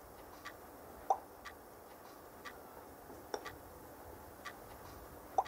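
A clock ticking softly about once a second in a quiet room, with three louder, pitched plinks at uneven intervals.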